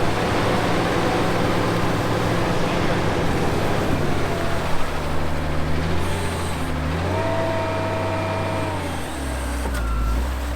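Heavy diesel equipment engine running and changing speed, its pitch stepping and gliding up and down, then settling into a steady low drone near the end.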